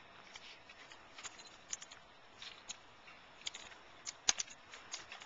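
Rifle drill handling: faint, scattered sharp clicks and slaps as white-gloved hands strike and move wooden drill rifles. The loudest is a quick cluster of slaps a little after four seconds in.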